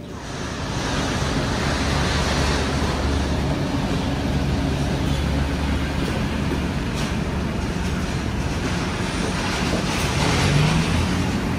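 Steady running noise of a passenger vehicle in motion, heard from inside: an even rush with a constant low hum beneath it. A low engine tone rises briefly near the end.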